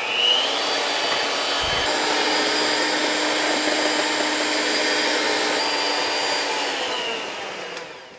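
Cuisinart electric hand mixer whirring steadily as its beaters whip heavy cream and sugar in a stainless steel bowl, then winding down near the end.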